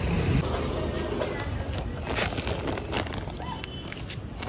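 Handling noises: a few short rustles and light knocks as a woven plastic sack is dealt with at a motorcycle's rear seat, over low outdoor background noise.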